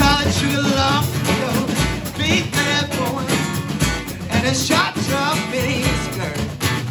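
Live acoustic duo: a man singing over a strummed acoustic guitar, with a drummer keeping a beat on snare drum and a deep bass drum thump about every two seconds.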